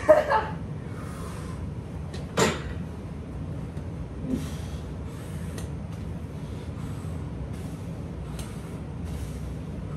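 Man starting a set of heavy dumbbell presses on a weight bench: a short sharp knock or grunt about two and a half seconds in as he rocks back with the dumbbells. Then faint hissy sounds repeat about twice a second over a low steady hum.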